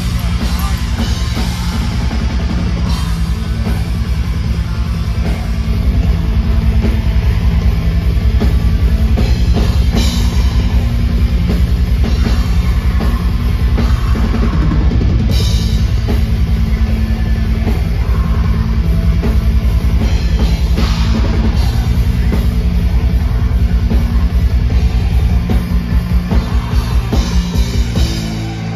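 Atmospheric black metal played live by a full band: fast drumming with cymbals under electric guitars. Near the end the beat turns into an even pulse of about three strokes a second.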